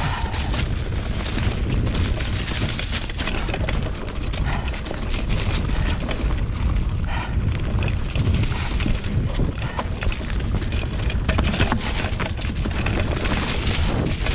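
2020 Specialized Pitch mountain bike rolling fast downhill over leaves, roots and rocks: its tyres crunch through the leaf litter while the chain and frame rattle and clatter over each bump, under a steady rumble of wind on the microphone.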